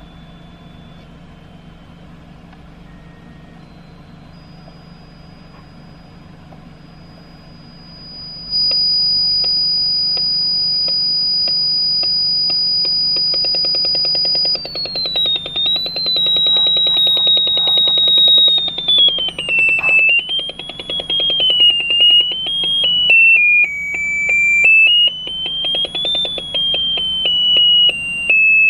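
Electronic 8-bit sound effects from an Arduino UNO sound-effect box. After a faint stretch, a loud steady high beep starts about eight seconds in and holds for about six seconds. Then the pitch wobbles and glides up and down with a rapid buzzing pulse.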